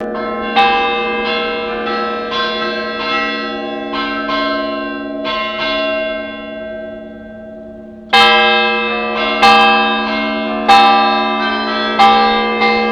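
Bells being rung in the Russian style (kolokolny zvon): a deep bell hums on while smaller bells are struck in a quick pattern. About six seconds in the pattern thins and fades; about eight seconds in, a loud new round starts, with heavy strokes about every second and a half over the smaller bells.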